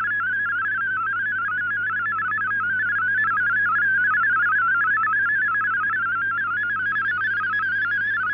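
MFSK32 digital text signal from a shortwave broadcast, heard through a receiver: a rapid, unbroken stream of tones hopping up and down around 1.5 kHz as text is sent. A steady low hum lies underneath.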